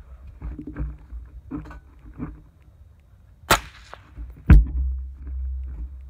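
Suppressed gunfire from a 14.5-inch AR-15 in .223 firing ball ammunition through a Thunder Beast 223 Ultra 7 suppressor: a sharp crack about three and a half seconds in, then a louder bang about a second later with a low rumble trailing after it.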